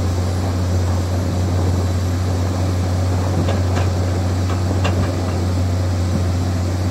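Komatsu excavator diesel engine running steadily at an even pitch, with a few faint short knocks about halfway through.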